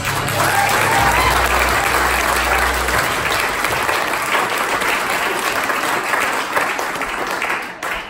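Audience applauding, with some voices cheering; a low hum underneath ends about three seconds in, and the clapping dies away at the end.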